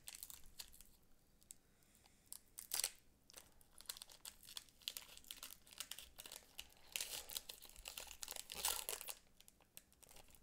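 A Pokémon Rebel Clash booster pack's foil wrapper being torn open and crinkled by hand. Faint, scattered crackles come with louder bursts about three seconds in and again from about seven to nine seconds. The wrapper is fiddly and does not tear cleanly.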